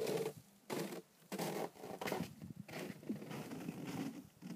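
Freezing lake ice making a string of short crackling, creaking bursts, some with brief rising squeaks: the sound of a lake 'singing' as its ice forms during a deep freeze.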